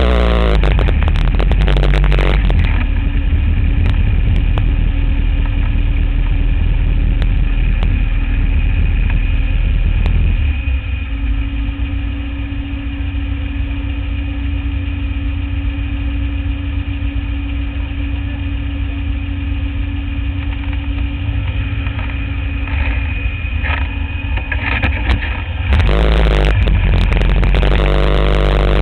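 Motorcycle trike's engine idling steadily, louder and rougher for the first couple of seconds and again over the last few seconds.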